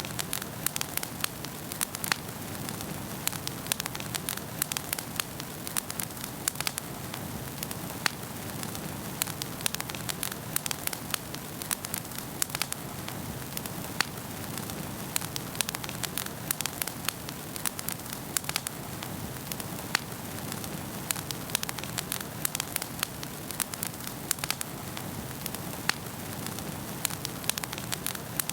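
Wood fire crackling in a fireplace: many small sharp pops and snaps, several a second, over a steady low rush of the burning flames.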